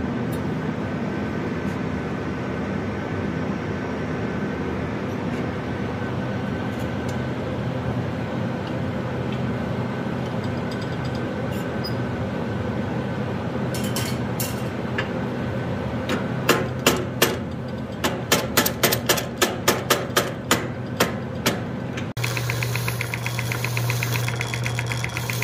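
Steady machine hum, then from about halfway a run of sharp knocks, several a second, as the forged steel woodpecker's beak pecks into wood and chips out a hole. Near the end the hum changes to a stronger, buzzing drone.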